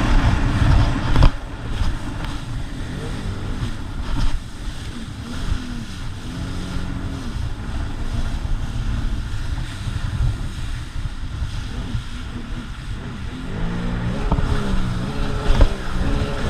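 Sea-Doo Spark Trixx personal watercraft engine running and rising and falling in pitch a few times as the throttle changes, under heavy wind noise on the microphone.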